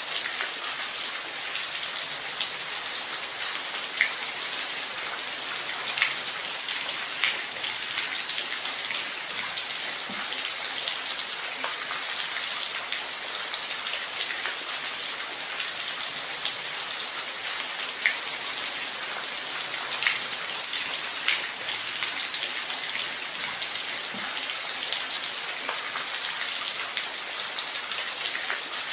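Steady rain falling, an even hiss of many drops, with now and then a single louder drop striking close by.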